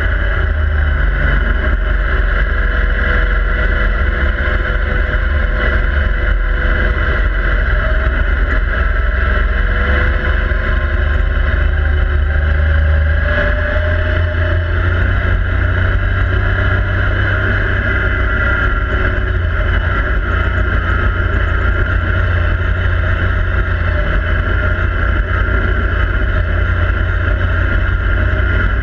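Yamaha YXZ1000R side-by-side's three-cylinder engine running steadily under way along a dirt trail, heard from inside the cab, with the engine pitch drifting slightly up and down.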